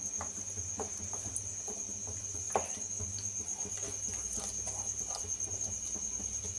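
Wooden spatula stirring thick, bubbling kesari in a nonstick pan: soft scraping with scattered light taps, and one sharper knock about two and a half seconds in. A steady high-pitched whine and a low hum run underneath.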